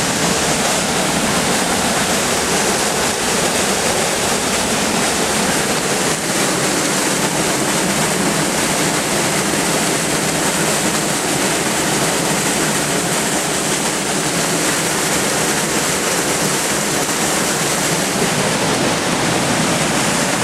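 Rain-swollen creek waterfall, water pouring with a steady, loud rush.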